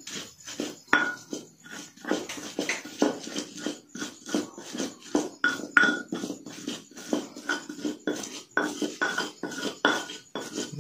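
Irregular clicking and clinking of a plate and its contents as snails are mixed by hand with a chilli spice paste, several small knocks a second.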